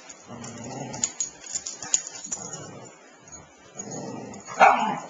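Two dogs, one an Australian Labradoodle, tussling over a leash: scuffling paws with scattered clicks and short dog noises, and a sharper, louder yelp-like sound near the end.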